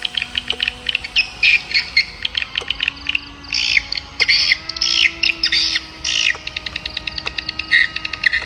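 Birds chirping in quick, dense runs of short, high notes, over a few faint, held low tones.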